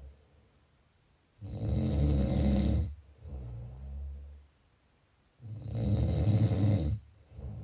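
A sleeper snoring: two loud, rattling snores about four seconds apart, each followed by a softer, lower breath.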